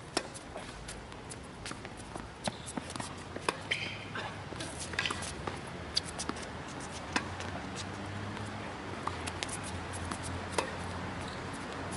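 Tennis rally on a hard court: sharp pops of racket strikes and ball bounces at irregular intervals, with scuffing footsteps between them. A faint low hum comes in about two-thirds of the way through.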